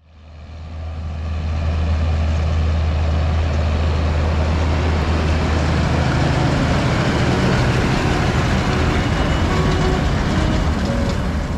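Deutz-Fahr Agrotron 105 tractor running steadily while pulling a Deutz-Fahr Varimaster 560 round baler-wrapper combination, a deep engine drone under the clatter of the machinery. The sound fades in over the first couple of seconds.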